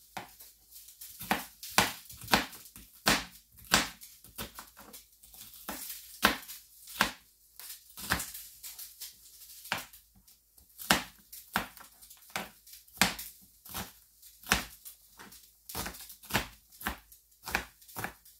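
Kitchen knife dicing an onion on a plastic cutting board: a run of sharp knocks as the blade strikes the board, about two a second.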